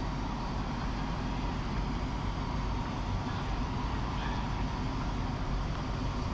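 Steady low rumble with a faint constant hum from a diesel locomotive idling on a far station track.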